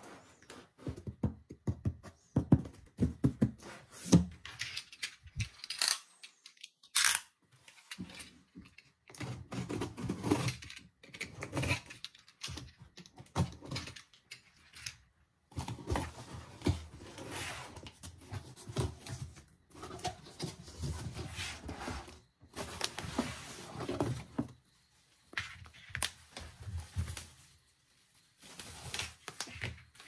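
Handling noise from a small plastic object: irregular clicks, knocks and rustles, with the sharpest knocks in the first few seconds and bunches of shorter clicks and rustles after that.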